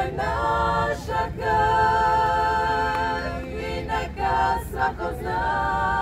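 A women's vocal ensemble singing unaccompanied in close harmony: sustained chords, the top voice wavering on a long held note, with short breaks between phrases about a second in, past the midpoint and near the end.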